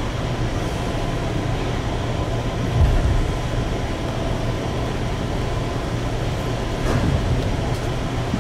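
Inside a JR East 205-series 500 electric train moving slowly on a shunting run: a steady low hum of the running train, with a heavy knock about three seconds in and lighter clicks near the end.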